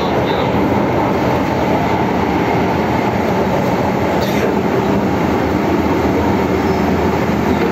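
1979 MTR M-Train (Metro-Cammell electric multiple unit) running at speed through a tunnel, heard from inside the car: a steady, loud, dense running noise from the wheels and running gear, with one faint click about four seconds in.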